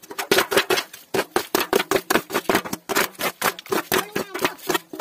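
Steel plate scooping and flinging muddy water out of a small pool in quick, rapid strokes, several a second, each a sharp splash over a faint ringing note. This is bailing the pool dry to get at the fish in it.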